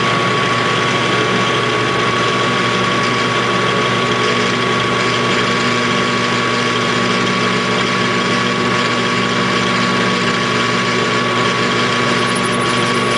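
Metal lathe running steadily with its four-jaw chuck spinning, a mechanical drone with a steady high whine over it.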